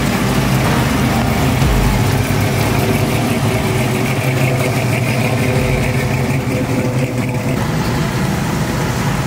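Classic Chevrolet C10 pickup's engine running at low speed as the truck rolls slowly past, a steady deep rumble.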